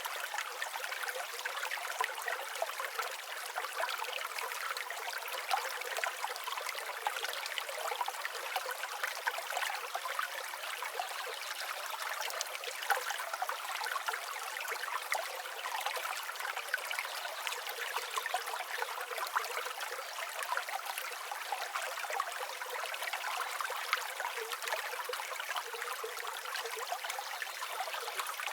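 Stream water flowing and trickling in a steady, continuous babble, light and without any deep rumble.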